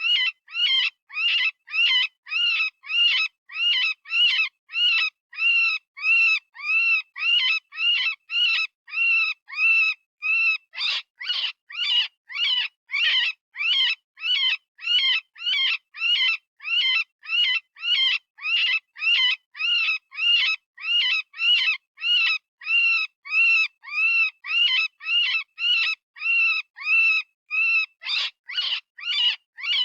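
Software-generated rabbit distress scream, a predator-call sound: short high-pitched cries repeated about twice a second, each rising and falling in pitch. A few harsher, more abrupt cries break the pattern around a third of the way in and again near the end.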